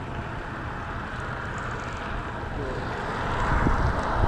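A car approaching along a highway, its road and engine noise growing louder over the last second or so.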